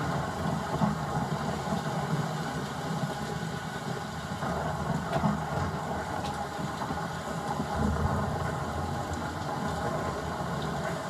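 A steady engine rumble, like a vehicle idling, with a few faint clicks over it.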